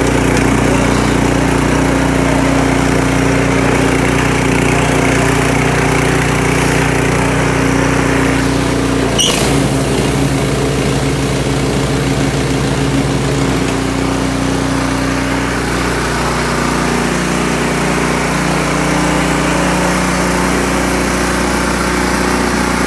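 A Briggs & Stratton 208cc single-cylinder four-stroke engine on a two-stage snowblower runs steadily on its first start. A sharp click comes about nine seconds in, and the engine's tone shifts slightly after it.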